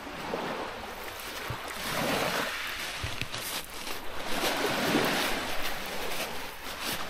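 Small waves washing onto a pebble beach, the wash swelling and fading every few seconds.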